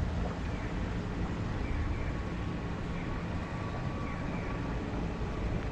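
Street traffic: a steady low hum of vehicle engines on the road beside the pavement, with a few faint, short high chirps above it.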